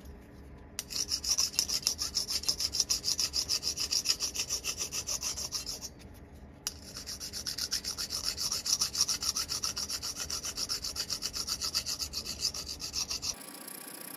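Small round file scraping in quick, even back-and-forth strokes across a polished stainless steel drip rail molding backed by a bench vise, knocking down high spots left from hammer work. Two long runs of strokes with a brief pause about six seconds in.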